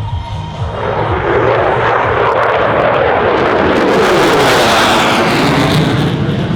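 Jet noise from a USAF Thunderbirds F-16 passing by: a loud rushing roar that swells about a second in, peaks around four to five seconds, and begins to ease near the end.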